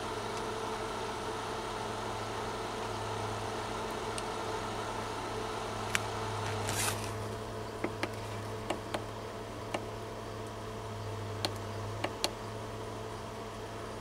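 12-volt compressor fridge-freezer running with a steady low hum from its compressor and fan. From about six seconds in, a handful of short sharp clicks from its control-panel buttons being pressed, with a brief rustle near seven seconds.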